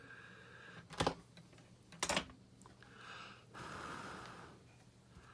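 Handling noise at a soldering bench: two sharp knocks about a second apart, then a soft hiss lasting about a second, over a faint steady hum.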